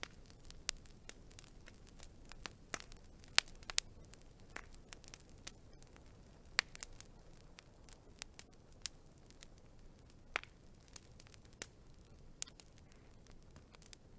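Wood fire crackling: a low steady hiss with irregular sharp pops and snaps, a few of them louder than the rest.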